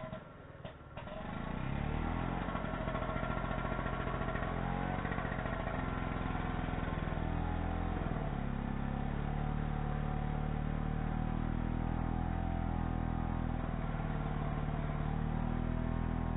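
Gasoline chainsaw revving up about a second in and running at full throttle as it bucks a log into firewood, its pitch dipping briefly under load a couple of times.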